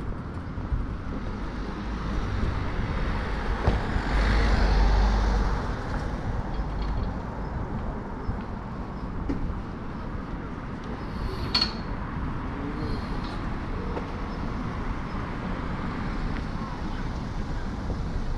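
City street traffic noise, steady, swelling to a louder low rumble about four seconds in as a vehicle passes, with a single sharp clink a little past halfway.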